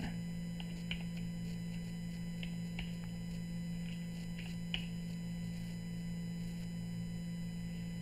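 Steady low electrical mains hum, with a handful of faint, irregularly spaced clicks of computer keys being pressed in the first five seconds as a typo is corrected.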